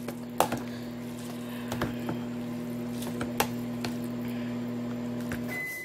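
Microwave oven running with a steady hum, with a few light clicks and knocks. Near the end the hum stops and the microwave's high beep sounds as the heating cycle finishes.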